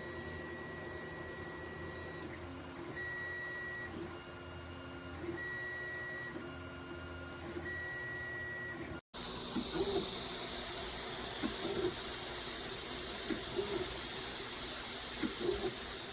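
3D printer running a print: its stepper motors whine in steady tones that start, stop and change pitch as the moves change. After a cut about 9 seconds in, a steady hiss takes over, with short motor chirps about once a second.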